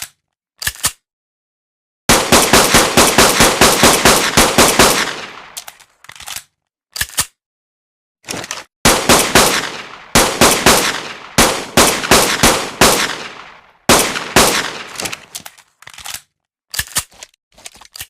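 Pistol gunfire sound effect: rapid strings of shots, several a second, each with a short ringing tail, broken by single shots and gaps of dead silence between takes. The first long string starts about two seconds in, and another runs from about nine to fourteen seconds.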